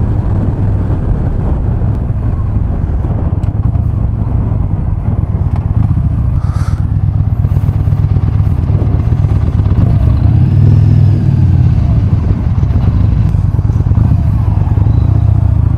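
Yamaha XV950R's air-cooled V-twin engine running steadily as the motorcycle cruises at highway speed, getting a little louder about ten seconds in.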